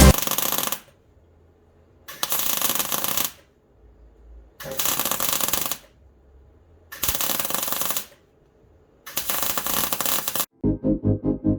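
Five bursts of harsh rattling noise, each about a second long, with dead silence between them. Pulsing synth music starts near the end.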